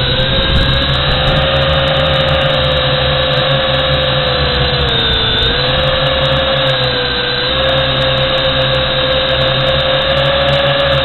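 Drone's electric motors and propellers whining, heard close from its onboard camera. The pitch rises as it lifts off, then holds steady with two brief dips.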